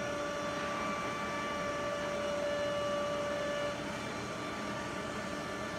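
Holztek PRO-R4F four-head CNC nesting router running on a wood panel: a steady machine noise with several steady whining tones over it. The strongest whine fades and the sound drops slightly a little over halfway through.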